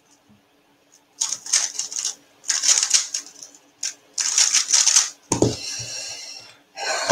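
Rapid clicking and clattering of a 3x3 speedcube being turned fast during a timed solve, starting about a second in and running in dense stretches.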